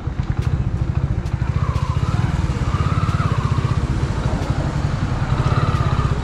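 Hero Splendor motorcycle's single-cylinder four-stroke engine running at low revs with a steady, rapid putter, as the bike rolls slowly at walking pace.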